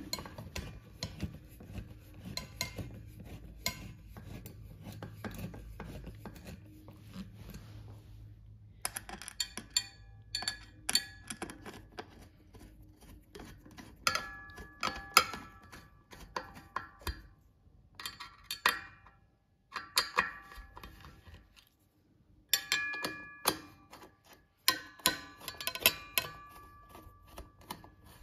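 Hand screwdriver driving screws into the finned aluminium heat sink and case of a solar inverter: irregular clicks and metallic clinks, some ringing briefly, with short pauses between.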